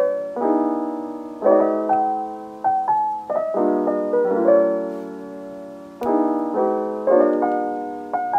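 Background piano music: soft chords struck about once a second and left to ring, with a simple melody over them.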